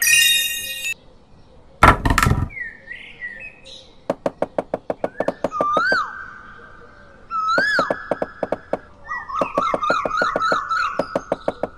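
Edited-in cartoon sound effects: a bright chime lasting under a second, a short noisy burst about two seconds in, then a run of rapid, even clicks with whistled chirps that rise and fall over them.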